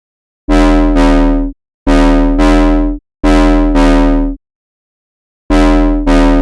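Synthesizer bass stabs: four pairs of short, loud notes, each pair two stabs back to back, with a longer pause before the last pair.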